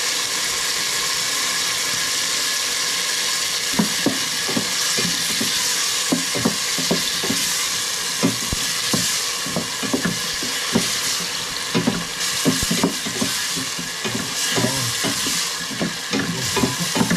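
Food sizzling in hot oil in a pan as it is sautéed, with a steady frying hiss. From about four seconds in, a stirring utensil knocks and scrapes against the pan at irregular intervals.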